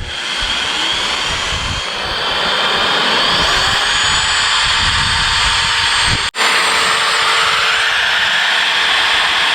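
Electric drill with a step drill bit running at speed while enlarging bolt holes in steel Unistrut channel: a loud, steady motor whine that rises in pitch over the first few seconds and then holds, broken briefly about six seconds in.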